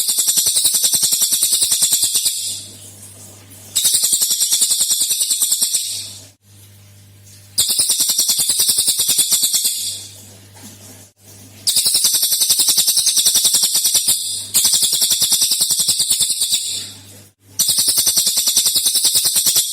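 Cililin songbird singing its rapid 'tembakan' song: a series of fast, high-pitched trills, each lasting two to three seconds, repeated about six times with short pauses between. A low steady hum shows in the gaps.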